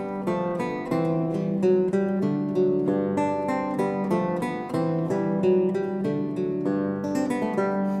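Background music on acoustic guitar, a gentle run of separately plucked notes, a few each second.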